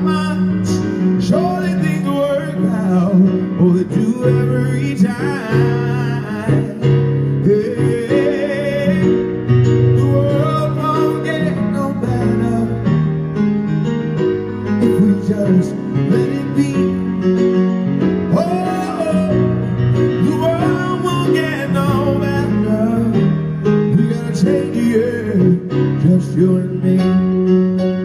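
Male singer performing live with his own grand piano accompaniment, sustained chords under a wavering, ornamented vocal line with vibrato.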